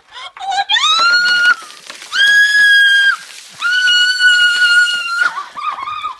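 A young woman screaming as ice water is poured over her: three long, high-pitched screams, the first rising in pitch, then shorter cries near the end.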